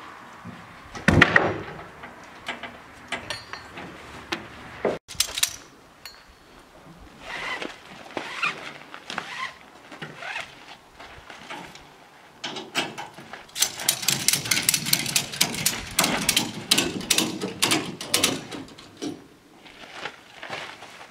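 Orange ratchet tie-down straps being handled and tightened around a truck's wheels on a metal car trailer. There is a loud knock about a second in, strap rustling, then a long run of rapid ratchet clicks in the second half.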